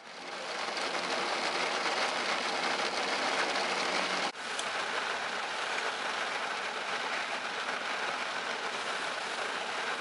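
Steady rain hissing on a car's windscreen and roof, heard from inside the car. The sound drops out for a moment about four seconds in.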